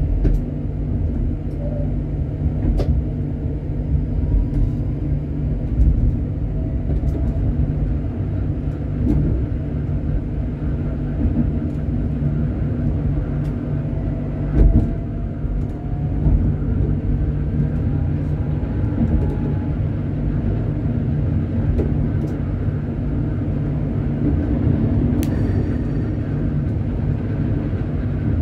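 Electric tram running along street track: a steady rumble of wheels and running gear, with a faint motor whine that rises in pitch as it speeds up, light clicks and one sharper knock about halfway through.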